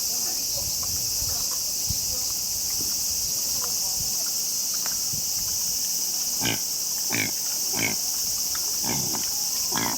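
An animal giving about five short, harsh calls in quick succession in the second half, over a steady high insect drone.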